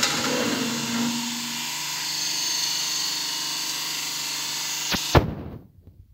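Compressed-air machinery in a factory running with a steady whirring hiss. Two sharp clicks come about five seconds in, then the noise cuts off abruptly, leaving only a faint background.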